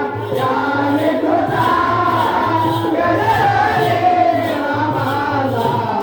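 Shakti-Tura folk song: several voices singing together in a gliding melody over a steady, evenly repeating drum beat.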